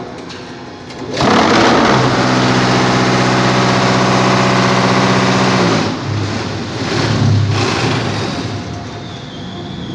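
Electric concrete-block (batako) making machine running: a loud, steady hum starts about a second in, holds for about four and a half seconds, then cuts off, followed by two shorter bursts.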